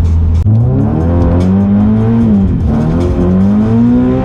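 Subaru BRZ's flat-four engine revving hard through a slide on a wet road. A steady note jumps about half a second in, then the pitch climbs, dips about halfway and climbs again as the throttle is worked; the car nearly gets away from the driver.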